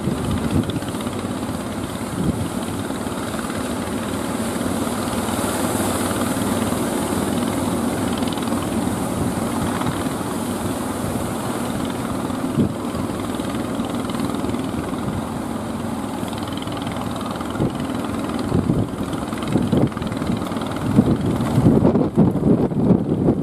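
Wooden fishing boats' engines running steadily under a rush of surf and wind on the microphone. Gusts buffet the microphone in uneven thumps near the end.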